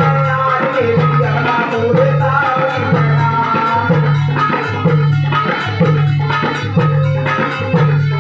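Devotional jagran bhajan music: held melody lines over a steady beat, a little faster than once a second, with percussion.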